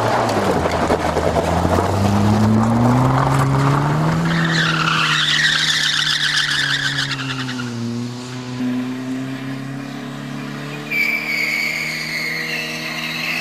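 Car engine revving hard as the car pulls away, its pitch climbing over the first few seconds, then tyres squealing as the car skids: once from about four seconds in and again near the end, with the engine still running under it.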